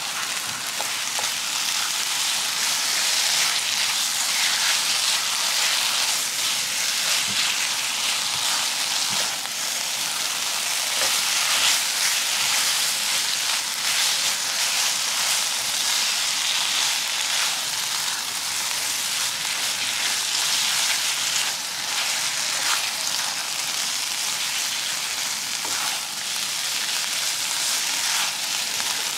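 Chili-and-shallot sambal paste sizzling steadily as it fries in a non-stick wok, with faint scraping and clicks from a spatula stirring and pushing the paste around.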